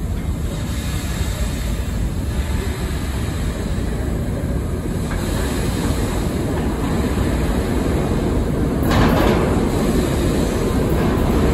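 New York City subway train running in an underground station, a steady low rumble growing slowly louder, with a short burst of hiss about nine seconds in.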